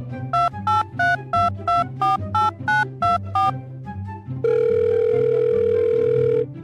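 About ten quick touch-tone telephone keypad beeps, each a two-pitch tone that changes from key to key, followed by one long steady tone of about two seconds, dubbed in as a sound effect. Background music plays underneath.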